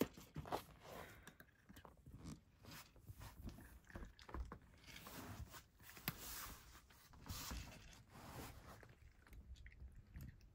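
A cat chewing dry kibble: a faint, irregular run of small crunches as it eats from the dish.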